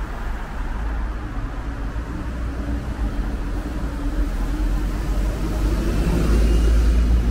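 City street traffic: road vehicles running past with a steady low rumble, growing louder near the end as a vehicle passes close.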